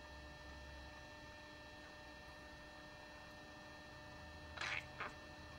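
Steady low electrical hum, then two short chirps from a pet budgie near the end.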